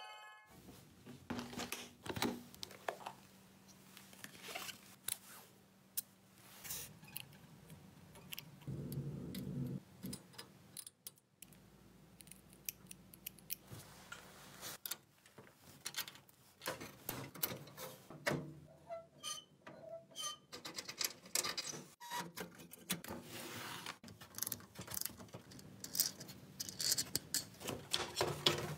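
Close-up handling of a small rusty metal toy car and its parts: a string of light clicks, taps and scrapes, with a brief low hum about a third of the way in.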